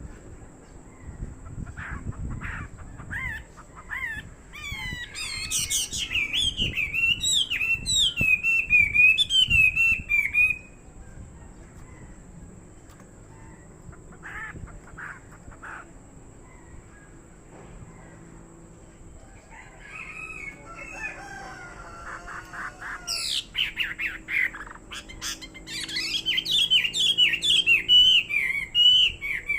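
Chinese hwamei (hoạ mi) singing: two long passages of rapid, varied phrases, the first about a sixth of the way in and the second starting about three-quarters through, with only scattered quieter calls between.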